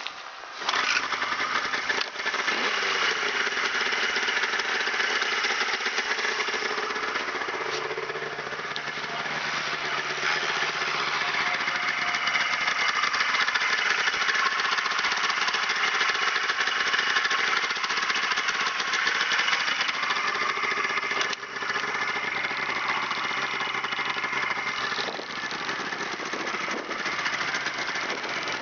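1996 Polaris Indy Ultra 680 snowmobile's three-cylinder two-stroke engine starting about half a second in, its revs dropping back over the next couple of seconds, then running steadily at idle.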